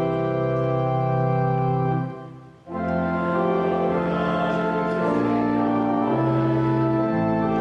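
Church organ playing slow, held chords. About two seconds in the sound dies away to a brief pause, then the organ begins again with a new phrase.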